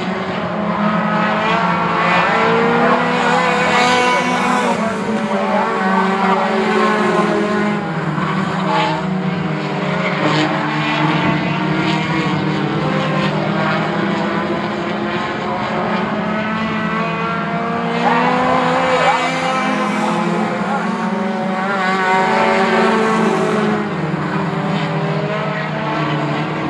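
A pack of four-cylinder Lightning 4 compact race cars running at racing speed, their engines overlapping in a steady drone. The pitch rises and falls as the cars pass, most plainly about four seconds in and again from about eighteen to twenty-three seconds in.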